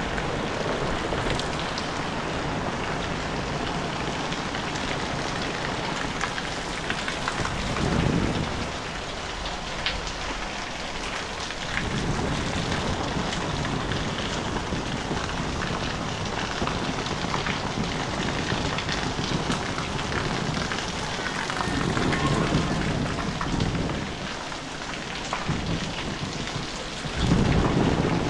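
Heavy rain falling steadily, with low rumbles swelling up a few times, the loudest near the end.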